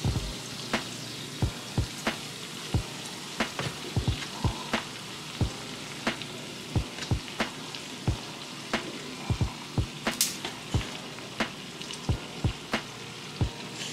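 Venison backstrap frying in butter in a cast-iron skillet: a steady sizzle broken by frequent sharp pops, one or two a second.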